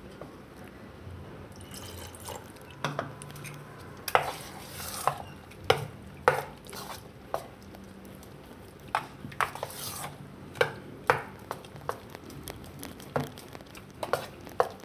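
A metal spoon stirring thick semolina dosa batter in a stainless steel bowl, with irregular clinks and knocks of the spoon against the bowl's sides amid the wet batter sounds.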